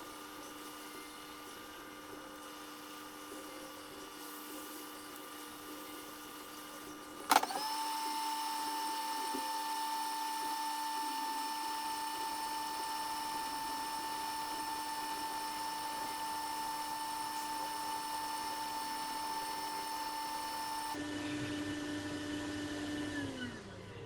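Small electric blower motor switched on with a sharp click about seven seconds in, then running with a steady high whine. Near the end it is switched off and its pitch falls as it spins down.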